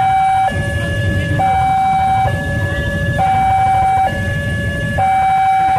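Railway level-crossing warning alarm sounding a two-tone hi-lo pattern, switching between a higher and a lower steady tone just under once a second, over a steady low rumble.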